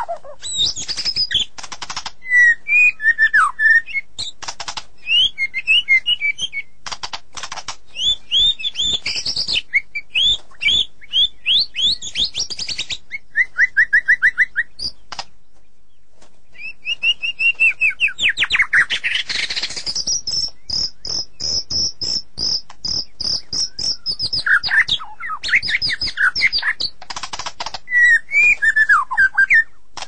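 White-rumped shama (murai batu) singing: a varied run of clear whistles, fast trills and harsh rattling notes, with a short pause near the middle and a long high note a few seconds after it.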